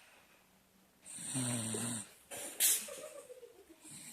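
A sleeping person snoring: a rasping, pitched snore on the in-breath about a second in, then a short sharp hiss of breath and a drawn-out out-breath that slides down in pitch.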